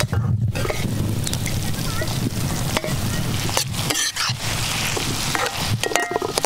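A hand mixes freshwater snails in their shells with chilli powder on a steel plate, the shells clicking against the metal. From about halfway, a steel spoon stirs and scrapes the snail masala in an iron kadai over a wood fire, with frying sizzle.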